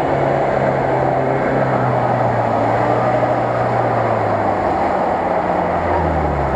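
Off-road truck engine running as it drives through shallow water, over a steady rushing splash of the wave it pushes. The engine note drops in pitch near the end as the truck goes close by.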